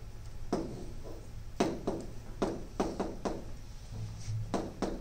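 Irregular sharp taps and clicks of writing on a board, about ten strokes in quick clusters, over a low steady room hum.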